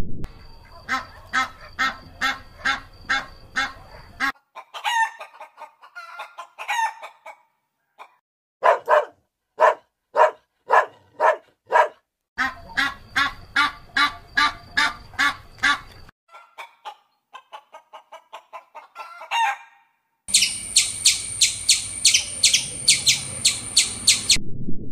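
Poultry calls: several short runs of rapid, evenly repeated clucking and chirping notes, each run a few seconds long and broken by brief silences. In the last run the chirps are high and shrill.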